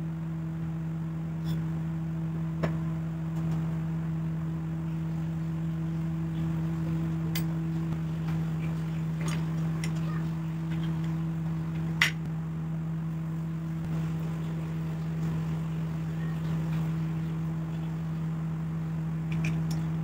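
A steady low hum throughout, with a few sharp metallic clicks as blade-clamp parts are handled and seated on an electric hand planer's cutter drum, the loudest click about twelve seconds in.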